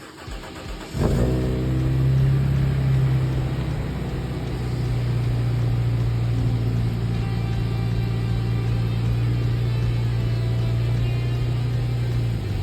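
Toyota Crown Majesta JZS155 on the move, with a steady low drone that starts suddenly about a second in. The owner takes it for an abnormal noise from the rear, maybe a worn hub bearing.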